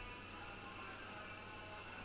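Quiet room tone with a faint steady high whine and low hum; the sprinkled coriander makes no distinct sound.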